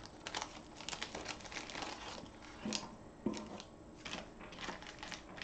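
Clear plastic bags crinkling and rustling as small baggies are handled and pushed back into a larger bag, with many light clicks and taps. There are a couple of soft knocks about three seconds in.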